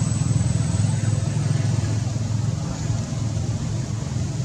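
Steady low rumble of a running engine, with a thin high whine that fades out about two seconds in.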